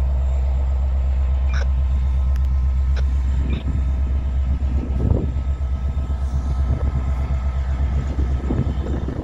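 Freight train rolling past: a steady low rumble from the diesel locomotives pulling away. From about three and a half seconds in, an uneven rumble and clatter from the hopper cars' wheels is added.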